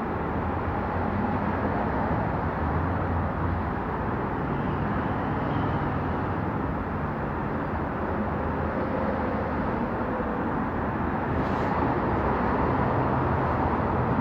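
Steady low rumble of road traffic and engines, with a brief click about three-quarters of the way through.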